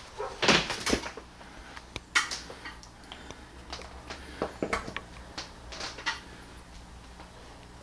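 Scattered clicks and knocks of a power-cord plug being handled and pushed into an electrical inlet, over a low steady hum.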